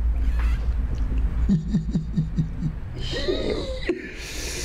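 A man laughing: a quick run of short 'ha' pulses about a second and a half in, then a higher, wavering laugh near the end.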